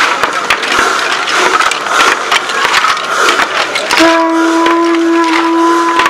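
Dense clattering and rattling from fur-costumed masked figures moving close by. About four seconds in, a steady horn-like note starts and holds for about two seconds.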